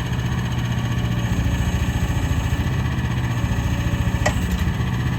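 Single-cylinder Briggs & Stratton 420cc gas engine of a mini excavator running at a steady idle, with a brief squeak about four seconds in.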